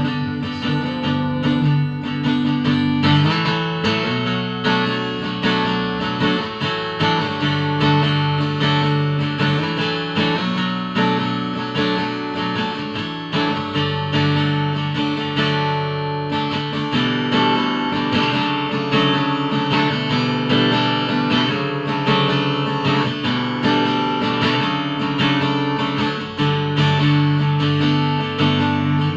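Acoustic guitar playing chords in a steady, even rhythm.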